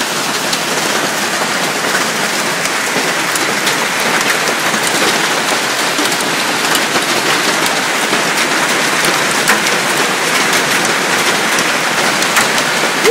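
Hail and rain pelting down in a dense, steady patter, with scattered sharper ticks of hailstones hitting.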